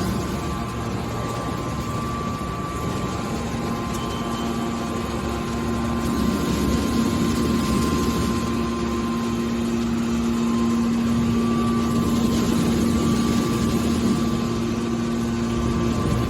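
Hydraulic scrap metal baler running: a steady motor-and-pump hum with a held tone, growing a little louder about six seconds in.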